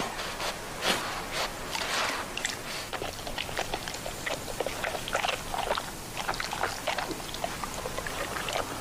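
Irregular crunching and crackling of snow as roe deer and then moose step and feed in it, heavier in the first few seconds and then a run of smaller, sharper crackles.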